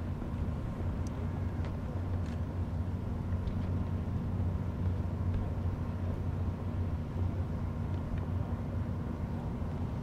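Steady low drone of distant engines, with a few faint ticks in the first few seconds; no cannon shot.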